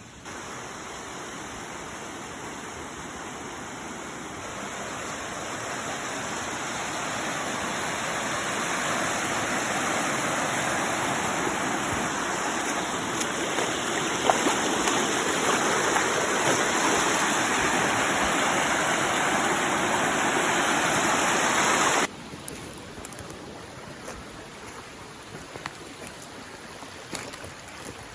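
A steady rushing noise, like running water or wind, that grows slowly louder and then cuts off abruptly about three quarters of the way through, leaving a fainter background with scattered small clicks.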